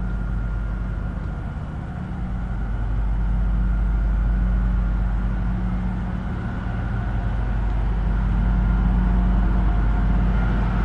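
Diesel engine of a container lifter running at a steady idle, a low even drone with a thin high whine over it, growing a little louder partway through and again near the end.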